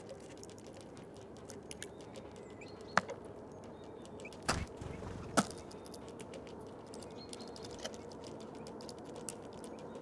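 Eurasian bullfinches at a feeder, beaks tapping and cracking sunflower seeds: scattered small ticks, with three sharper clicks near the middle, over a faint steady outdoor background.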